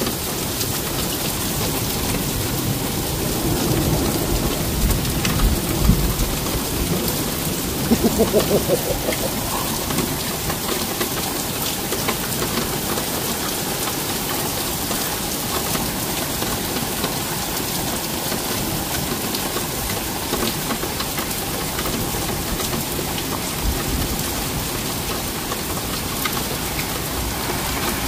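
Heavy rain pouring steadily during a thunderstorm. Thunder rumbles about four seconds in and rolls on with a quick rattling crackle around eight to nine seconds.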